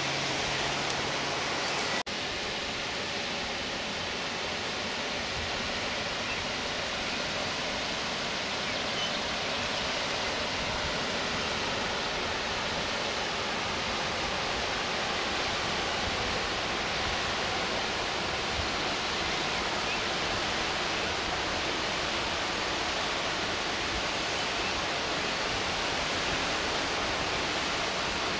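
Steady rushing of a waterfall and river rapids: an even wash of falling and flowing water, with a brief break about two seconds in.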